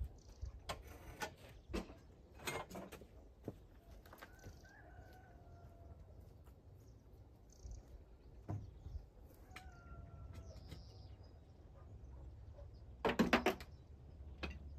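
Wooden planks knocking and clattering, as bracing boards are handled and taken down from a dry-stone wall. Two faint, drawn-out calls sound in the distance, and a loud rattling clatter comes near the end.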